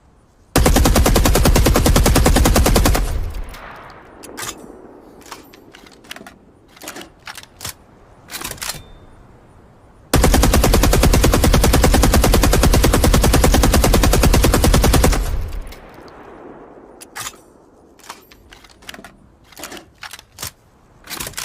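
Soviet DShK 12.7 mm heavy machine gun firing two long bursts of rapid shots: a shorter one about half a second in and a longer one of about five seconds near the middle. Each burst trails off into a fading tail. Scattered sharp clicks and clinks follow each burst.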